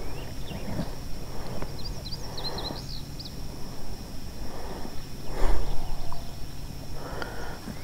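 Outdoor lakeside ambience with a low rumble and a few soft rustles. A bird gives a quick string of short high chirps about two seconds in.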